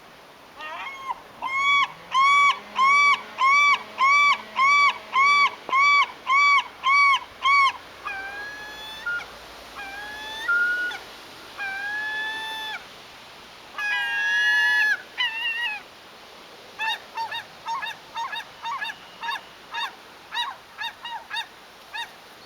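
Two gulls calling back and forth. First comes a long run of loud, evenly repeated calls, about two a second. Then a few assorted calls follow, and near the end a quicker run of shorter calls.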